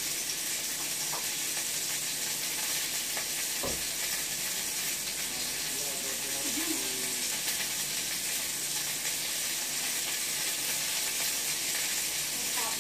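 Food sizzling in a frying pan on the stove: a steady frying hiss, with one dull thump a little under four seconds in.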